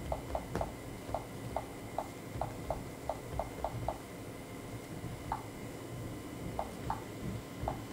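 Key-click sounds of a Samsung Windows 8 tablet's on-screen touch keyboard, one short tick per tapped key: a quick, uneven run of about a dozen taps, a pause of about a second, then a few scattered taps near the end.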